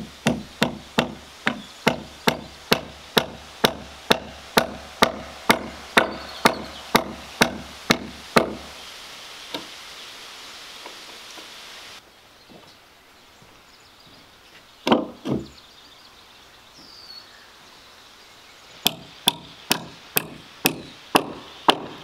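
Hammer nailing into wood: a steady run of sharp blows at about two a second, a pause with two duller thuds about two-thirds of the way in, then another quick run of blows near the end.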